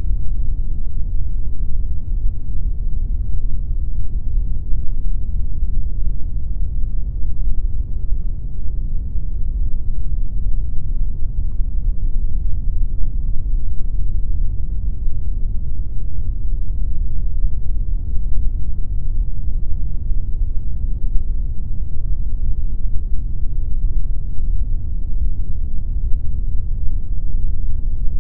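Continuous generated pink noise: a steady, even rushing rumble, heaviest in the deep low end and thinning out toward the top, with no changes or events.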